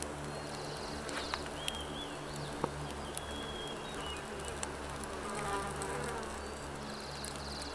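A flying insect buzzing, a steady low hum that swells and fades, with a few light clicks and some short high chirps.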